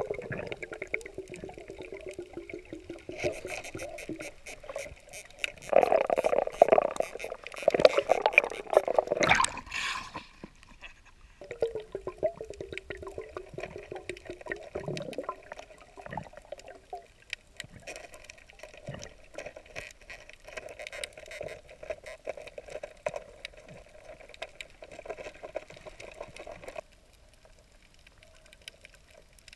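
Muffled underwater sound heard through a diving camera: gurgling, bubbling water with a low hum, loudest in a rush from about six to ten seconds in, then dropping away near the end.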